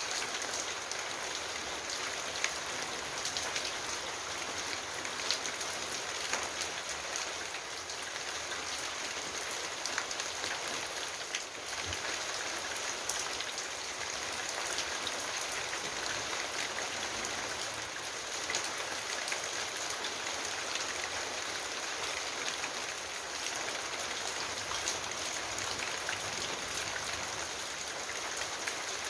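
Steady rain falling on leaves, a continuous patter with many individual drops ticking sharply against the foliage.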